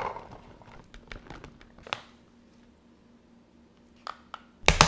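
Plastic pouch of soft fresh dog food crinkling as the pieces tip out into a plastic container, with a few light clicks. Near the end a plastic scoop taps in the container, followed by a dull thump.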